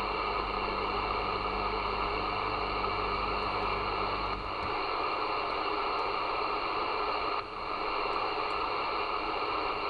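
President Grant II CB radio receiving open-channel static: a steady band-limited hiss with faint steady tones through it. A low hum under the hiss drops out about halfway through, and the hiss dips briefly near the end.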